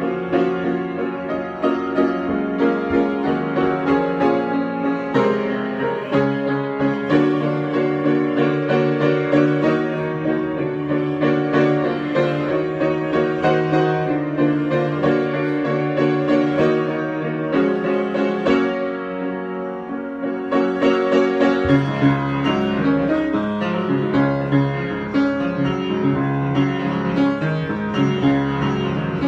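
Piano improvisation: chords and melody played on a piano, with deeper bass notes coming in about two-thirds of the way through.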